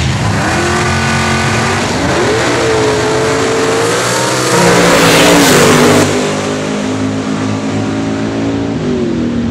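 Two nostalgia pro stock drag cars' V8 engines revving at the starting line, then launching at full throttle with the loudest burst about four and a half seconds in. The engine note then drops in pitch as the cars pull away down the track.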